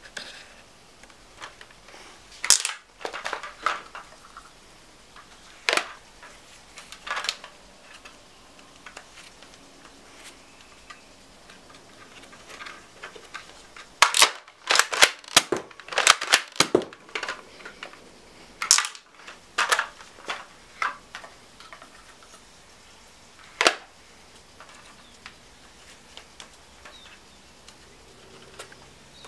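X-Shot Vigilante double-barrel over-under toy foam-dart blaster being worked and fired: sharp plastic clacks and snaps, single ones spaced a few seconds apart, with a quick run of several about halfway through.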